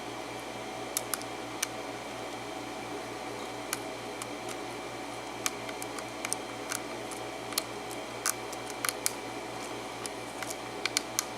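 Irregular small, sharp clicks from a lock pick and tension wrench working the serrated pin stacks of a Schlage KIK pin-tumbler cylinder during single-pin picking, over a steady low hum.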